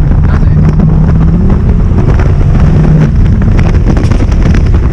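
Audi R8's 5.2-litre V10 engine and exhaust running under way at fairly steady revs, the note easing briefly twice, with wind buffeting the microphone.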